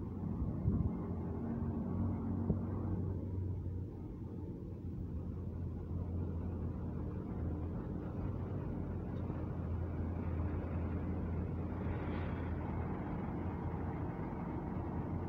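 Boom truck engine running with a steady low hum, powering the crane while it holds and swings a suspended water tank. A couple of short knocks come in the first few seconds.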